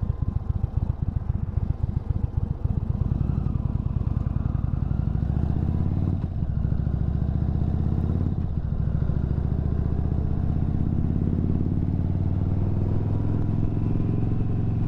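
2022 Indian Chief Bobber Dark Horse's Thunderstroke 116 V-twin pulling away from a near stop. Separate loping pulses at low revs give way to climbing revs, with two brief breaks in the note as it shifts up about six and eight and a half seconds in. It then runs steadily at cruising speed.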